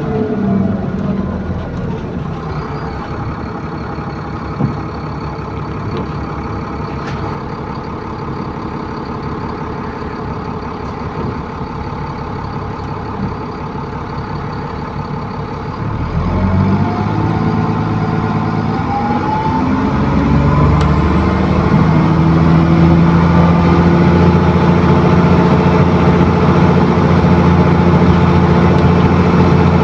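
ADL Enviro400 bus on a Trident chassis with a Voith automatic gearbox, heard from on board. The engine note falls away, then the bus runs quietly with a faint high whine. About halfway through the engine note rises as the bus accelerates, then settles into a louder steady run.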